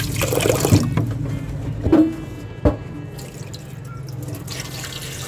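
Water splashing and sloshing as hands wash and squeeze chopped raw pork mesentery in a metal pot, loudest in the first second. Two sharp knocks come about two seconds in and again a moment later.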